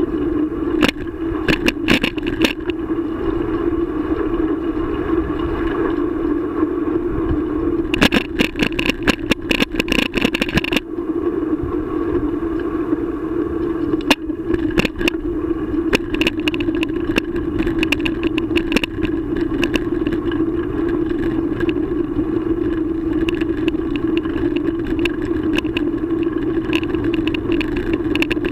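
Riding noise of a moving bicycle: a steady hum with clusters of rapid clicks and rattles from the bike and camera mount jolting over rough pavement.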